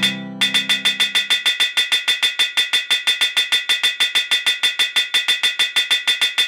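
The Terraria reforge sound effect, a short metallic anvil clang, repeated rapidly at about six or seven hits a second at one unchanging pitch. It starts about half a second in and stops abruptly at the end. A low held tone left over from the previous notes fades out in the first second or so.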